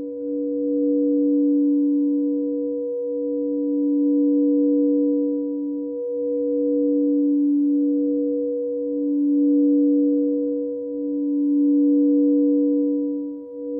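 Frosted quartz crystal singing bowls ringing together under mallets: a strong low tone and a softer higher tone held steady, the sound swelling and dipping about every three seconds.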